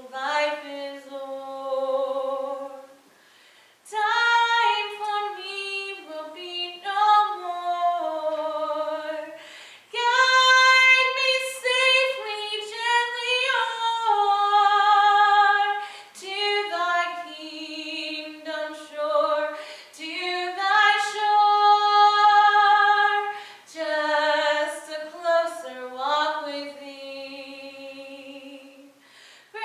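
A woman singing a solo unaccompanied, holding long notes with vibrato, her phrases broken by brief pauses for breath.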